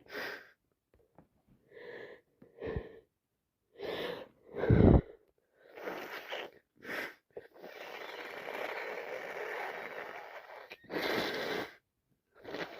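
A woman sneezing again and again, with wheezy breaths between the sneezes, from a head cold that has turned into sinusitis. The loudest sneeze comes about five seconds in, and a steady breathy rush lasts about three seconds after the middle.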